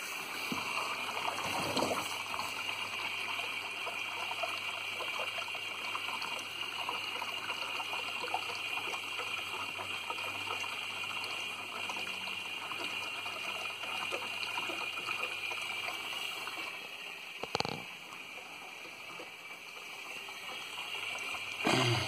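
Steady rush of water inside a Siemens dishwasher as it runs its cycle with water coming in past a newly fitted flow-rate sensor, with a couple of knocks near the end.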